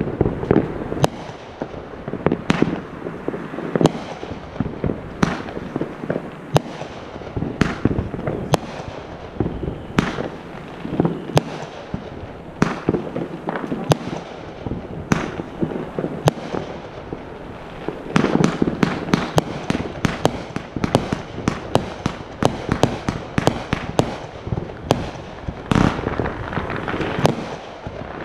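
Fireworks display going off without a break: many sharp bangs in quick, irregular succession over continuous crackling, busiest and loudest about eighteen seconds in.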